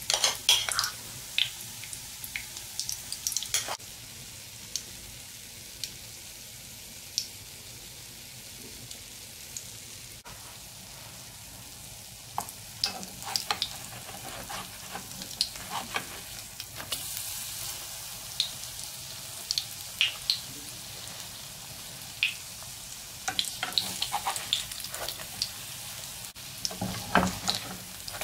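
Batter fritters frying in hot oil in a pan: a steady sizzle with frequent sharp crackles and pops. In the middle and near the end, metal utensils scrape and tap on the pan as the fritters are turned.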